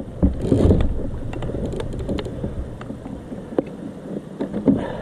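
Handling noise in a kayak: a heavy low thud and rumble in the first second, then scattered light clicks and knocks against the hull and gear.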